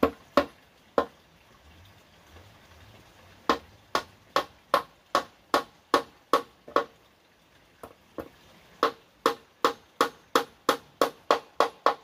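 Hammer blows driving nails into a wooden tabletop: a few single strikes, then two steady runs of sharp knocks, the first about two and a half a second, the second a little faster at about three a second, with two light taps between them.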